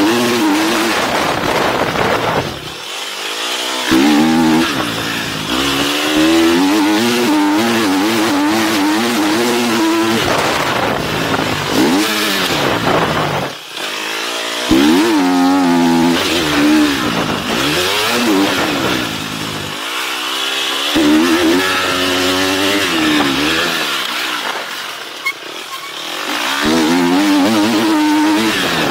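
GasGas motocross bike's engine revving up and down hard as the rider accelerates and shuts off, over wind rush on the helmet camera. The engine note drops out briefly several times, around 3, 13, 20 and 25 seconds in, where the throttle is closed.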